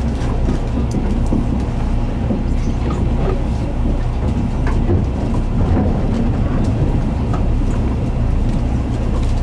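Tour boat's engine running with a steady low drone.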